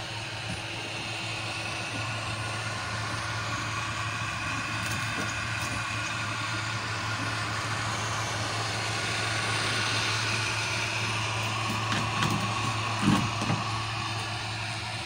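Small DC blower fan on the stove's air pipe running steadily, a continuous whirring hum with a hiss of moving air. A few light knocks come about two-thirds of the way through.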